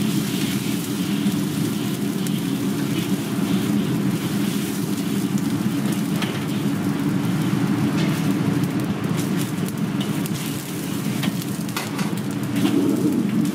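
Gas wok burner running steadily under a wok as a low rushing noise, with scattered clinks of a metal ladle and water poured into the wok about six seconds in. The burner gets louder near the end.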